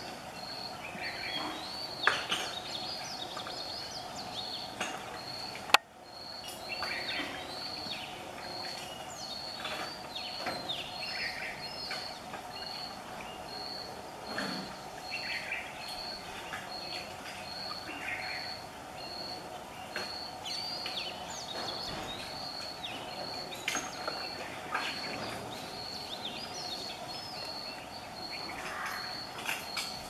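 Oriental magpie-robin singing, a varied run of sweeping whistled phrases. Behind it a high pip repeats a little faster than once a second, over a steady low hum. A sharp click comes about six seconds in.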